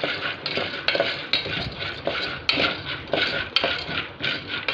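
A spoon stirring raw popcorn kernels in oil around an aluminium pressure-cooker pot, scraping the metal bottom with the kernels rattling, about two to three strokes a second.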